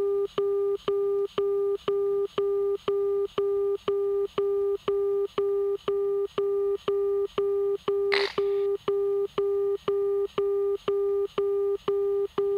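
Outer marker beacon audio on the approach: a steady mid-pitched tone keyed in even dashes about twice a second, repeating throughout, which marks the aircraft passing over the outer marker near the final approach fix. A brief rustle is heard about eight seconds in.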